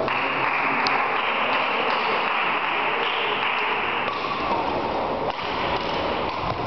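Badminton rally in a sports hall under a steady hiss of recording noise, with a few light sharp taps of rackets striking the shuttlecock, one clearest about a second in.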